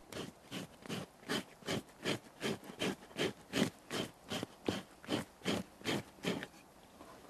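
Two-handled scraper pushed across a reindeer skin stretched over a wooden stump, in quick, even strokes about two and a half a second, stopping near the end. It is scraping loose flesh off the tanned skin to give it a smooth surface.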